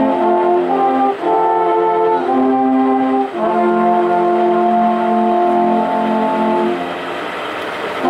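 Alphorn ensemble playing sustained chords in harmony: the chord changes a few times in the first three seconds, then one long chord is held and dies down near the end.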